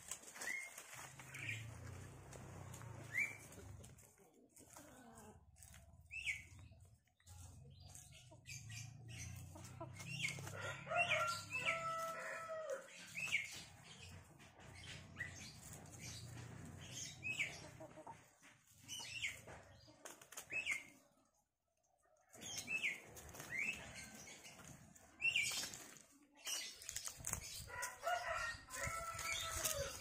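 Free-range village chickens clucking and calling as they forage, with two longer drawn-out chicken calls, one near the middle and one near the end. Small songbirds give short rising chirps every second or two throughout.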